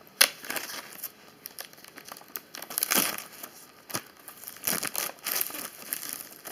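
A clear plastic blister pack crinkles and crackles in irregular bursts as it is pulled open by hand. There is a sharp snap just after the start.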